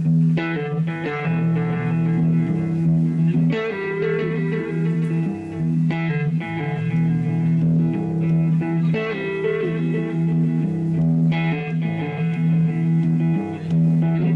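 Electric guitar playing a song's instrumental intro: ringing chords struck about every two and a half seconds over a steady low note that holds throughout.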